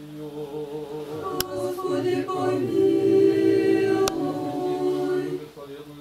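A small group singing an Orthodox church chant without accompaniment, holding long notes; the phrase swells to its loudest midway and ends about five seconds in. Two sharp clicks are heard.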